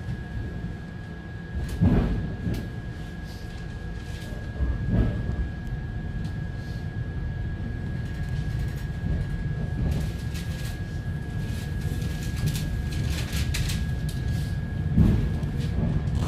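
ET2M electric train heard from inside its passenger car: a steady low rumble with a constant high whine, a few heavy thuds and a patch of clicking, the level slowly rising.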